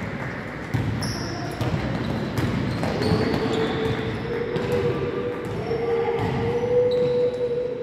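Indoor ball game: sneakers squeaking on a sports-hall floor and a ball bouncing, over the echoing noise of the hall. A steady low tone joins about three seconds in.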